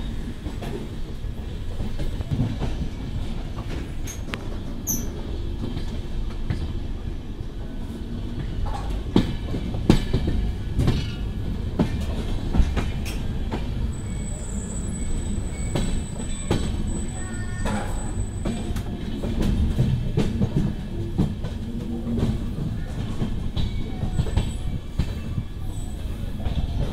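Express passenger train coach running into a station, heard from its open doorway: a steady rumble of wheels on track with sharp knocks over rail joints and points. A thin high wheel squeal sounds for a few seconds midway.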